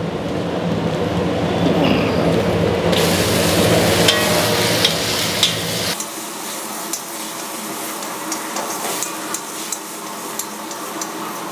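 Raw chicken pieces go into hot oil and masala in a steel wok and start sizzling about three seconds in, after a steady low rush. Then the chicken fries while a long metal spatula stirs and scrapes the pan, with frequent sharp ticks of metal on metal.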